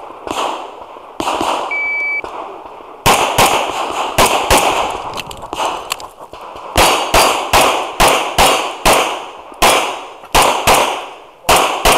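A shot timer beeps once, briefly, about two seconds in, giving the start signal. About a second later rapid pistol fire begins from a single-stack 1911-style pistol: roughly twenty sharp shots in quick pairs and strings, each ringing off the range, until near the end.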